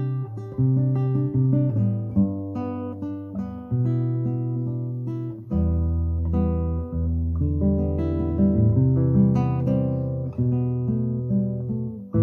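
Solo acoustic guitar being played: plucked notes and chords ringing over sustained low bass notes.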